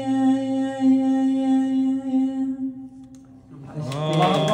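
A woman's unaccompanied singing voice holding one long final note, which fades out about two and a half seconds in. After a brief lull, voices and clapping begin near the end.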